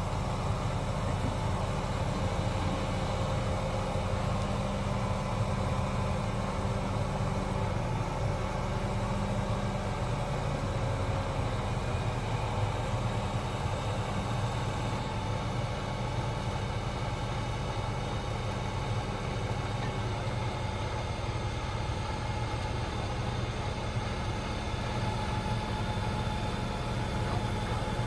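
Diesel engine of a mobile crane running steadily, a low, even hum, while the crane holds a wooden footbridge on its hook.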